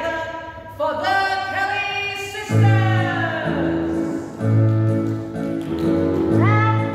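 A woman singing a show tune over a band accompaniment. About two and a half seconds in she holds a long note that slides down, while the band plays loud chords with a deep bass about every two seconds. Her voice swoops up again near the end.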